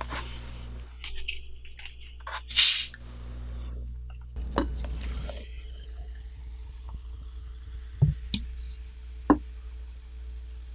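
Cola being opened with a short fizzing hiss, followed by a few small knocks and clinks.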